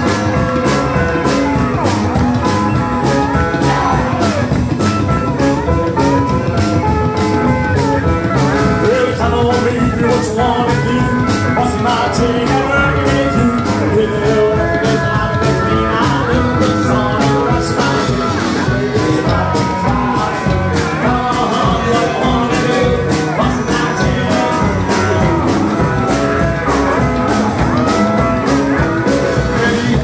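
Rockabilly band playing live: electric guitar, lap steel guitar, upright double bass and drums keep a steady boogie beat while a man sings.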